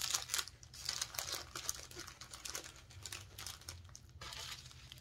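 Craft-kit packaging crinkling and rustling as it is handled: irregular crackles throughout, the loudest right at the start.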